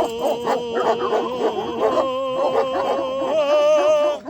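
Several sheepdogs barking and yelping over one another, with long held pitched tones running underneath.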